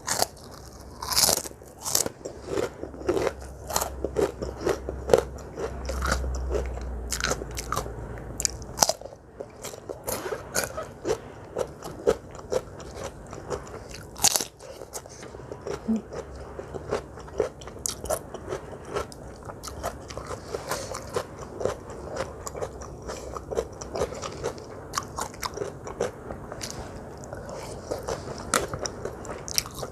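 Close-miked eating of crunchy food: bites and chewing, with many sharp crunches at an irregular pace.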